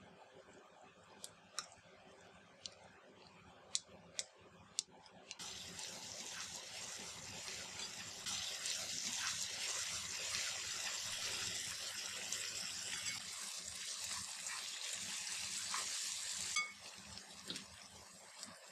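Sliced onions sautéing in hot oil in a frying pan. A few sharp crackles come first, then a loud, steady sizzle from about five seconds in that cuts off suddenly near the end.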